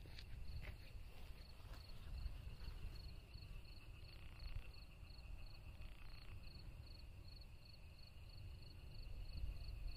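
A cricket chirping steadily at about three chirps a second, faint and high-pitched, over a low rumbling background.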